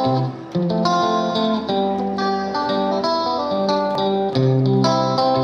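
Background music played on plucked guitar: a steady run of picked chords, each changing about every half second to a second.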